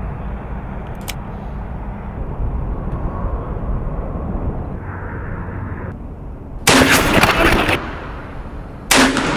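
Two revolver shots about two seconds apart, each a sudden loud blast lasting about a second, over a steady low rumble.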